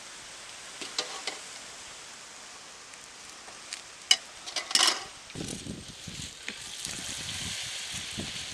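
Spiced-batter-coated raw banana slice deep-frying in hot oil in an iron kadai over a wood fire, the sizzling swelling about two-thirds of the way in as the fresh piece goes in. A few sharp metal clinks come just before it.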